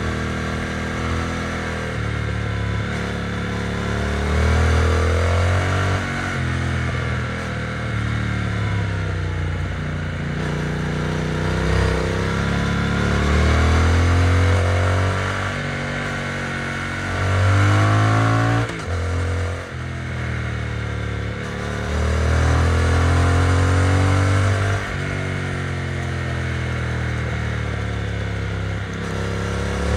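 Triumph Speed Twin's parallel-twin engine and exhaust running under way, the revs climbing and dropping back several times. There is a short dip in level about two-thirds of the way through.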